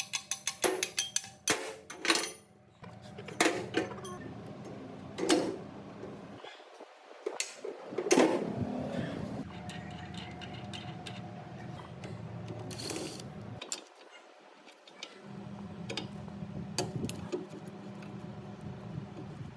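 Sharp clicks and knocks of metal parts being handled, then a small motor running steadily in three stretches of several seconds, cutting off twice in between.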